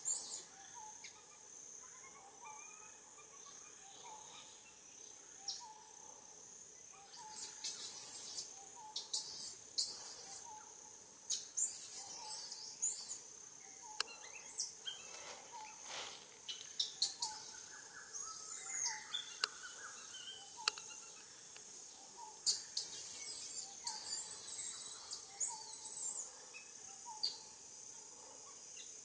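Baby macaque giving bouts of high, wavering squeals, over a steady high insect drone.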